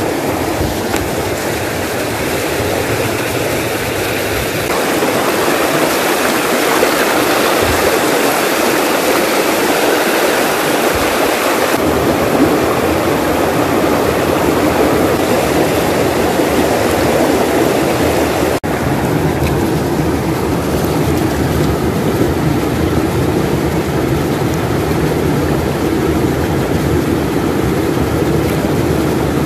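Shallow rocky stream rushing and splashing over stones at close range: a loud, steady rush of water that changes tone abruptly twice.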